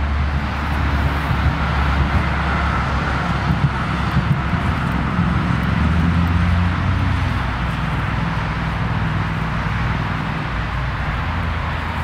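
Steady low rumble of distant road traffic, with no clear events standing out from it.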